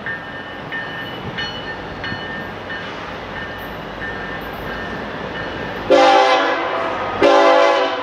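Approaching CN diesel freight train rumbling toward the listener, then its locomotive air horn sounding two loud chords about six seconds in, the first a little over a second long, the second a little shorter. The engineer is sounding a warning for a bridge construction site just beyond.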